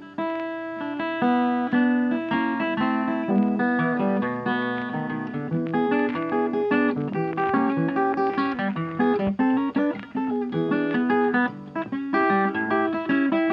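Background music: guitar playing a quick succession of plucked and strummed notes.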